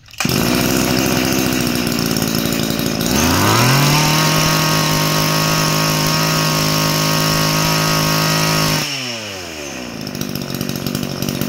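Tanaka 20 cc two-stroke brush-cutter engine starting up and idling. About three seconds in it is revved up to full speed and held there for roughly five seconds, then drops back to idle, running strongly.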